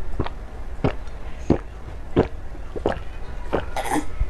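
A woman gulping down a drink in a steady run of swallows, about one every two-thirds of a second.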